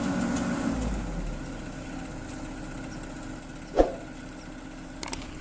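Komatsu crawler excavator's diesel engine idling steadily, getting a little quieter about a second in. A single sharp knock stands out partway through, followed by a couple of small clicks near the end.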